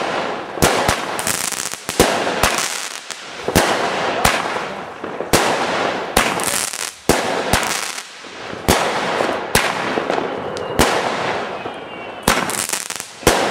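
Aerial fireworks going off in a long string of sharp bangs, about one or two a second, each burst followed by a crackling hiss.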